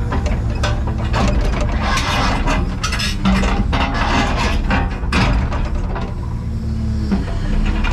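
Takeuchi TB285 compact excavator running while its steel bucket clanks and scrapes against rip rap rock, grabbing and setting stones, with many sharp knocks over the steady engine.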